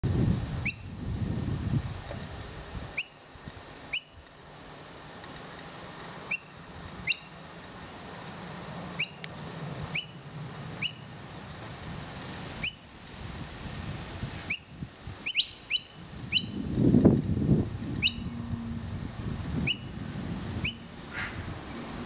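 Fledgling noisy miner calling to its parents: about twenty short, sharp, upward-flicking calls, repeated at irregular gaps of half a second to two seconds, with a quick cluster of calls in the middle.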